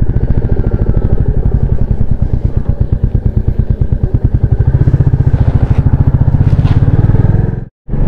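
Motorcycle engine running as the bike rides at low speed, its firing pulses even and strong in the low range. The sound cuts out for an instant near the end.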